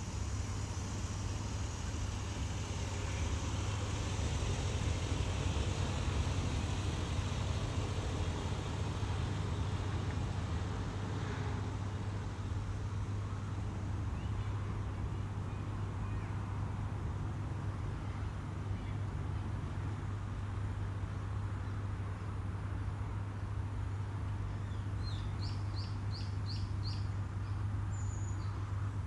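A steady low rumble, with a bird giving a quick run of about six high chirps near the end, followed by a short high whistle.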